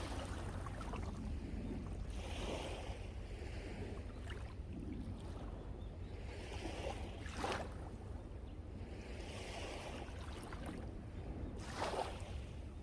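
Sea waves breaking and washing up the shore, a new wash swelling every few seconds with a sharper splash twice. A steady low rumble of strong wind on the microphone runs underneath.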